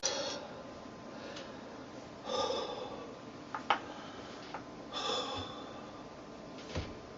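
A person breathing: two short, breathy exhalations or sniffs about two and a half seconds apart, with a few faint clicks between them.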